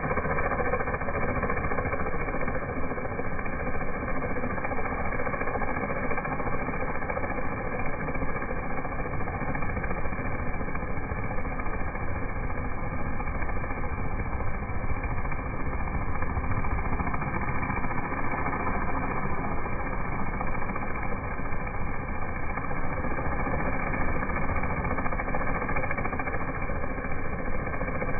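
Engine-driven pressure washer running steadily, with the water jet from the wand spraying onto wet asphalt at the base of a brick border wall.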